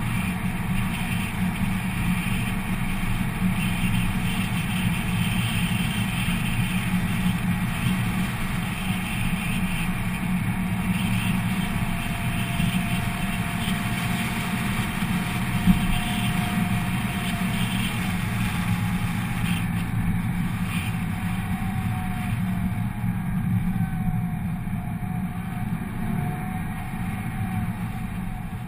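2004 Pontiac GTO's 5.7-litre LS1 V8 with JBA shorty headers, running steadily while the car cruises. There is a single sharp knock about halfway through.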